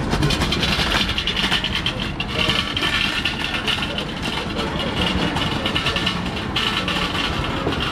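City street ambience: steady traffic noise with an indistinct murmur of passers-by's voices.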